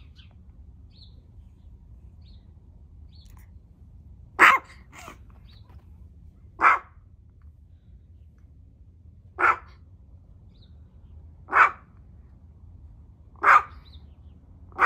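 Long-haired chihuahua barking: six single sharp barks about two seconds apart, starting about four seconds in.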